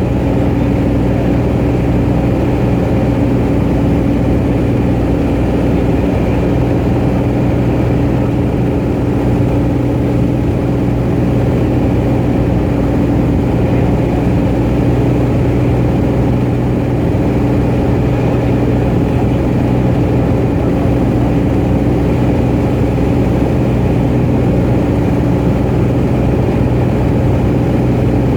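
Cessna 210 Centurion's six-cylinder piston engine and propeller droning steadily in flight, heard as constant cabin noise.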